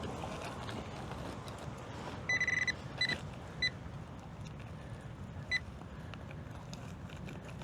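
Handheld metal-detecting pinpointer beeping as it is probed over a target in the dig hole: a quick run of rapid high beeps a little over two seconds in, then three single short beeps. A steady background noise runs underneath.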